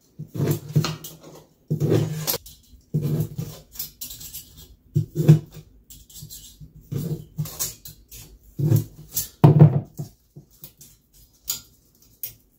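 Aviation snips cutting V-shaped notches into the thin aluminium base plate of a carpet trim profile: a run of about eight short, sharp cuts, a second or two apart.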